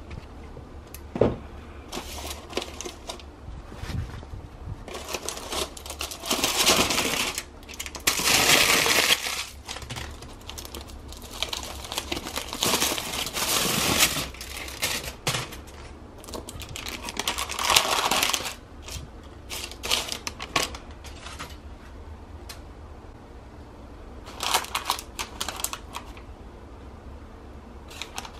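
Aluminium foil crinkling as it is peeled off foil baking trays, in several bursts a few seconds apart, with sharp clicks and knocks of the thin metal trays and rustling of baking paper.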